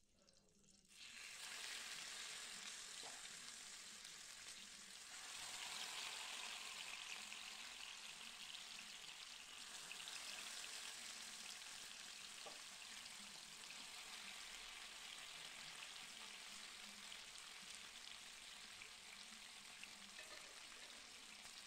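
Chicken pieces sizzling as they fry in butter and oil in a nonstick pan, a steady hiss that begins about a second in and grows louder around five seconds in. The chicken is being browned on both sides.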